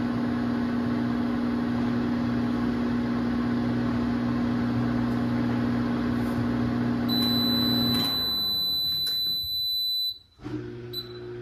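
Microwave oven running with a steady hum while heating a cup of water and vinegar, then a high beep near the end of its cycle as the hum winds down and stops about eight seconds in, with a few clicks. A fainter hum starts again near the end.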